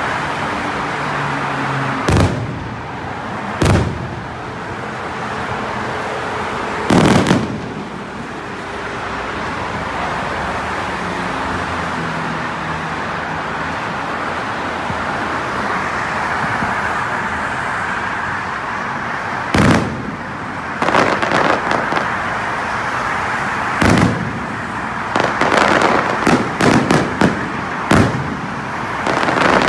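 Aerial firework shells bursting. Single sharp bangs come about 2, 4 and 7 seconds in, a few more around 20 and 24 seconds, then a quick run of cracking bursts near the end, all over a steady background hiss.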